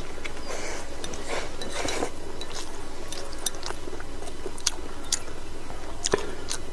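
A person chewing and eating food close to the microphone, with scattered sharp little clicks throughout and a denser patch of chewing noise early on, about half a second to two seconds in.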